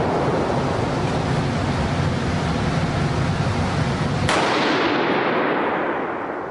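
A single shot from an AR-15 rifle chambered in 6.5mm Grendel about four seconds in, followed by a long echoing decay off the walls of an indoor range. Before the shot there is a steady rushing noise.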